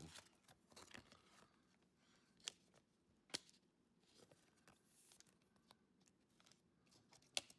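Faint handling of a Pokémon trading card and a clear plastic card sleeve: light rustling with three sharp clicks, the loudest near the end.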